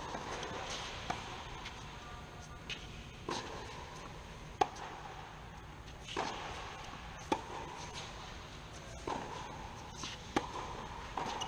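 Tennis ball struck by rackets and bouncing on a hard court during a baseline rally: about ten sharp knocks, one every second or so, each hit echoing in the indoor hall.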